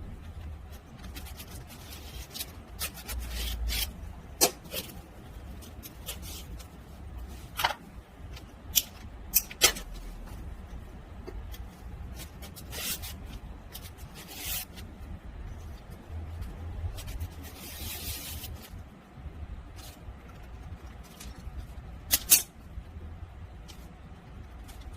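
Hand tools working on leather: scattered sharp clicks and taps, with a short scraping, cutting sound about eighteen seconds in, over a low steady hum.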